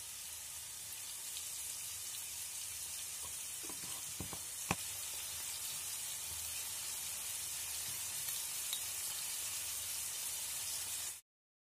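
Diced onion and bell peppers sizzling steadily in olive oil in a frying pan, with a few light clicks about four seconds in. The sizzle cuts off suddenly near the end.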